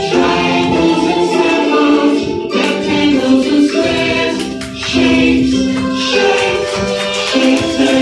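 Children's shapes song playing as recorded music: a melody of held notes changing about once a second over light percussion, with no clear sung words.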